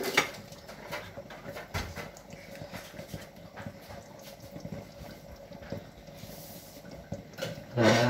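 Thick minced-meat and carrot sauce simmering in a stainless steel pot, with small irregular bubble pops and ticks, and a louder short sound near the end.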